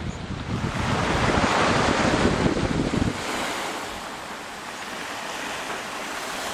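Sea surf washing on the shore, with wind buffeting the microphone. The wind rumble swells over the first three seconds and cuts off suddenly about three seconds in, leaving the steady hiss of the surf.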